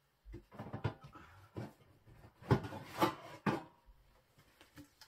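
Metal storage tins knocking and scraping against each other and a wooden shelf as one is lifted down: a run of knocks, the two loudest about two and a half and three seconds in.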